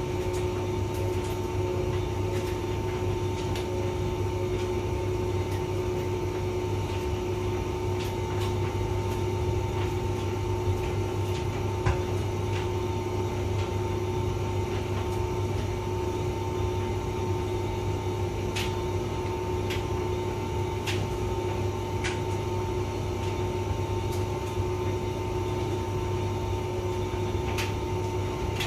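Hotpoint vented tumble dryer running: a steady motor and fan hum with a constant whine, and occasional light clicks as the drum turns.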